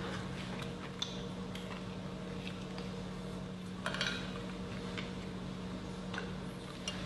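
Metal spoon clinking and scraping inside a glass jug of thick garlic sauce, loudest about four seconds in, with a few faint ticks either side over a steady low hum.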